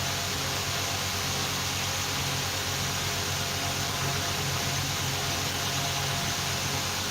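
Steady hiss with a low, even hum, like a fan or air conditioner running; no distinct bird calls stand out.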